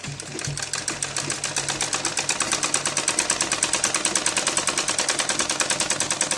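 Sewing machine stitching a straight seam through cotton fabric: a fast, even run of needle strokes, about ten a second, building up in the first second or two and then running steadily.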